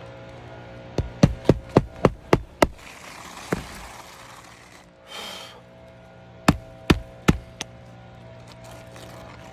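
Hammer striking nails into a roof shingle: a quick run of about seven blows roughly four a second, a single blow, then four more blows. A brief rustle comes between the two runs.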